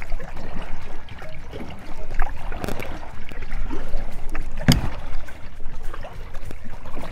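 Kayak paddle strokes in creek water, with splashing and dripping. One sharp knock about two-thirds of the way in.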